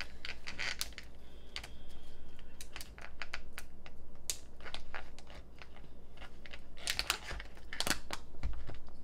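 Plastic pickle pouch crinkling and crackling as it is opened and handled, a run of irregular sharp crackles that grows busiest near the end.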